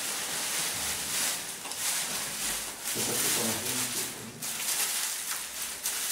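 Dry straw and costume cloth rustling and crackling as a Gille carnival costume is stuffed with straw.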